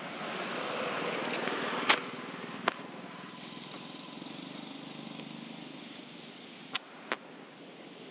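Outdoor background noise that swells over the first couple of seconds and then eases off, broken by four sharp clicks, the loudest about two seconds in.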